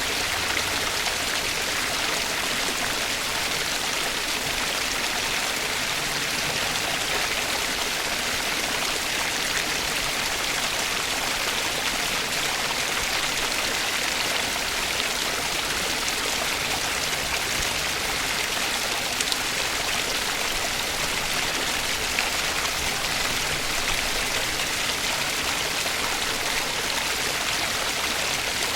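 Stream of water running steadily over rocks, a continuous rushing and splashing with no letup.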